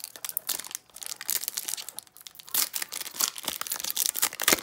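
Foil wrapper of a trading-card pack being torn open by hand, crinkling and crackling in irregular bursts, with the loudest crackles about two and a half seconds in and near the end.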